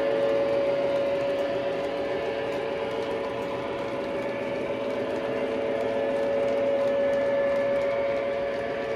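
O scale model train running: a steady whirring rattle of ore hopper cars rolling on the track, with a steady mechanical hum under it.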